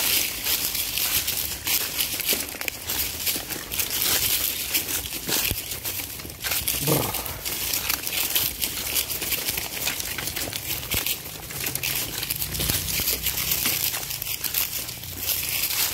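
Dry fallen leaves and track ballast crunching and crackling underfoot, a steady run of crackles as someone walks along a leaf-covered railway track.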